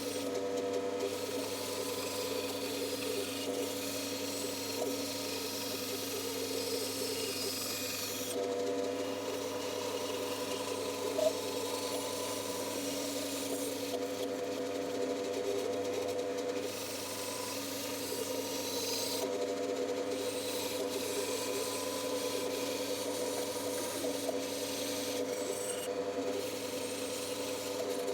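Bandsaw running with a steady hum, its blade cutting wood in stretches of several seconds with short pauses between cuts. A single sharp knock about eleven seconds in.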